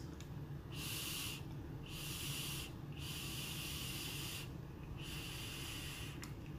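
Vape mod fired at 60 watts on a freshly wicked new coil and drawn on: a faint hiss of air and vapour in four stretches of about a second each.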